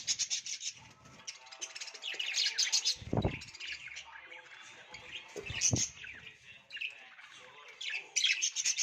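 A colony of budgerigars chattering, with many rapid overlapping chirps and warbles. Two dull low thumps come about three seconds and five and a half seconds in.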